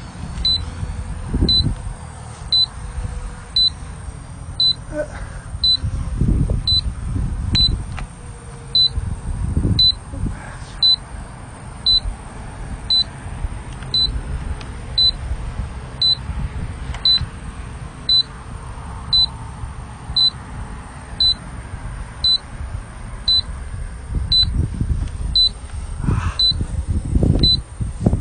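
A short high electronic warning beep repeats about once a second, over gusts of low wind rumble on the microphone.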